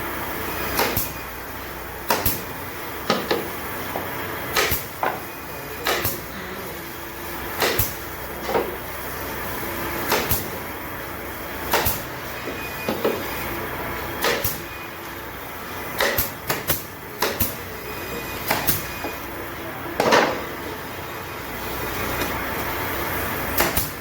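Irregular sharp knocks and clunks, roughly one a second, over a steady background hum, typical of wooden pieces being handled and tapped while a tray is made.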